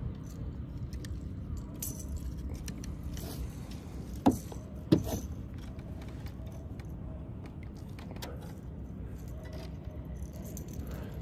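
Light clinking and rattling of fishing tackle, as from a snagged lipless crankbait and its hardware being worked free, with two sharp knocks about four and five seconds in, over a low steady rumble.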